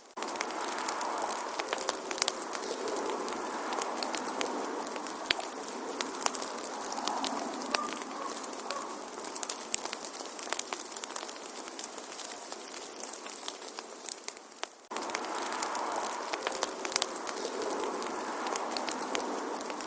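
Wood fire crackling in a fireplace: a steady hiss of burning with frequent small sharp pops. About 15 seconds in it fades briefly, then comes back abruptly.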